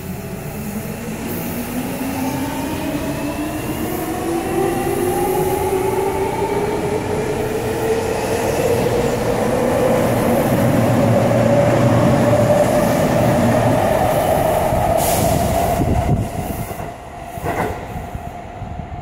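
Commuter train set 6057F, fitted with trial permanent-magnet synchronous traction motors, accelerating away from a station platform: the motors and their inverter give a whine of several tones that rises steadily in pitch, over wheel and rail noise. The sound drops away suddenly near the end.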